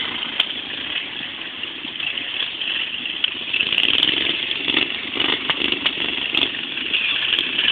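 Racing lawn mower engines running steadily in the background, with a few faint clicks.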